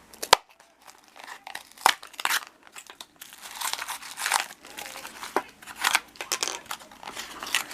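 The blind-bag wrapper of a Disney Princess Comics Mini figure being torn open and crinkled by hand: a few sharp rips in the first couple of seconds, then steady crinkling from about three seconds in.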